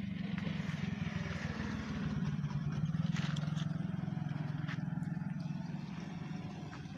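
A motor vehicle's engine running nearby, a steady low drone that grows louder around the middle and eases off toward the end, as if passing by. A few light clicks of the phone being handled.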